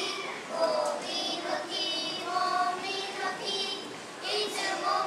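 A choir of young children singing together in sustained, held notes.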